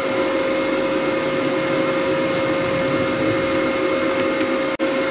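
Steady whirring hum of a running machine, with a constant mid-pitched whine and a fainter higher one over an even rushing noise. It drops out for an instant near the end.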